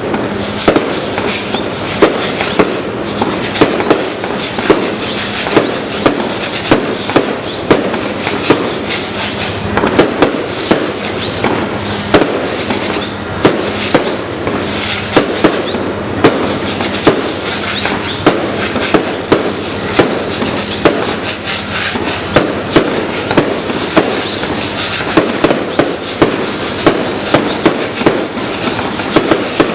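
Aerial fireworks display: a continuous barrage of shells bursting, with sharp bangs two or three times a second over steady crackling, and a few short whistles.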